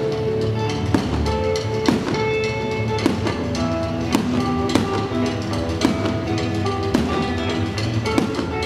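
Music with held melody notes and a steady beat, about one strong hit a second.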